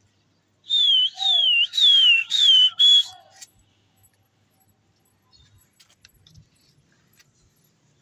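A person whistling loudly close by: five short shrill whistles in quick succession, each falling in pitch, then it stops about three seconds in. These are a pigeon flier's whistles to his flock in the air.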